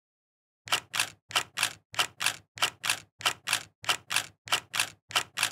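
Sharp, even ticking beat from about a second in: clicks come in pairs a quarter second apart, about three pairs every two seconds, like a clock's tick-tock.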